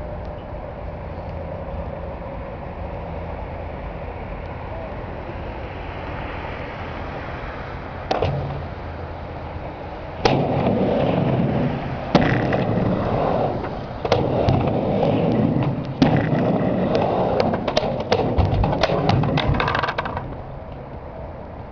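Skateboard riding a mini ramp: a single knock, then from about ten seconds in a run of loud wheel rolling broken by repeated sharp clacks of the trucks and board hitting the coping and deck, ending about two seconds before the close. Under it all is a steady background hum.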